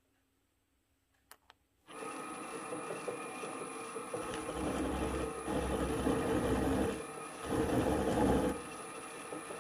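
Two clicks, then a drill press starts running about two seconds in and hums steadily. Twice it gets louder and heavier for a second or two as the end mill bites into the aluminium adapter plate, cutting under load.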